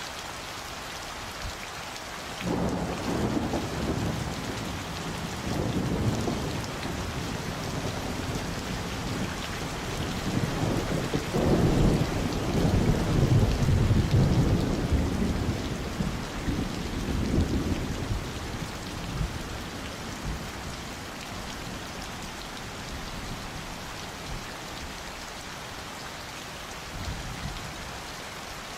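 Steady summer rain with a long roll of thunder. The thunder rumbles in a few seconds in, swells to its loudest around the middle and dies away well before the end, leaving the even hiss of the rain.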